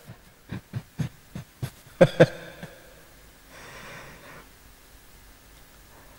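A man's short breathy puffs close to a handheld microphone, about nine quick huffs in the first two and a half seconds, then a softer breath about three and a half seconds in.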